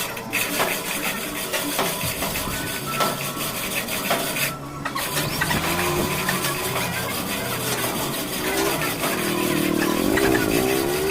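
An engine running, with scattered knocks and clanks; its pitch wavers in the last few seconds.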